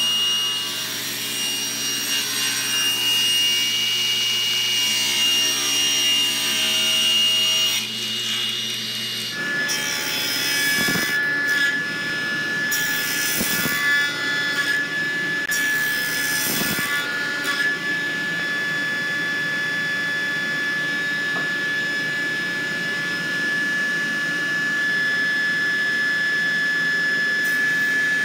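Table saw running with a steady whine while its blade cuts a notch across a wooden workpiece in repeated passes.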